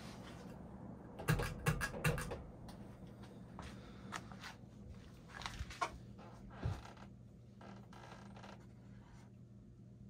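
1998 Hunter Sea Air 52-inch ceiling fan coasting down with its power off, a faint steady low hum underneath. Scratchy clicks and scrapes come in two clusters, one starting about a second in and another around six seconds in.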